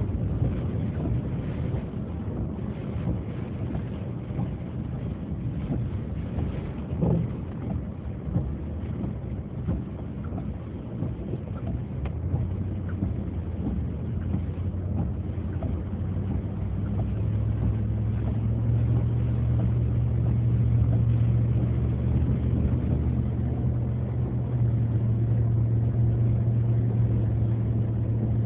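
A motor vehicle's engine running with a steady low hum under a wash of rushing noise. The hum grows louder after about two-thirds of the way through.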